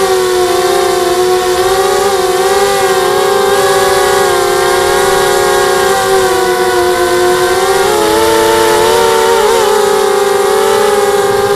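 250-size FPV racing quadcopter's brushless motors and propellers whining steadily, the pitch wavering and shifting with throttle changes about eight to ten seconds in.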